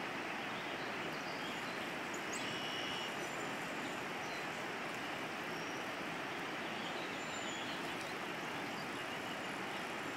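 Steady rush of shallow river water flowing, with a few brief, faint bird chirps.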